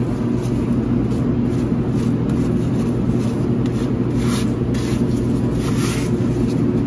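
Grout being worked into floor tile joints, with several brief scraping strokes over a steady low motor hum.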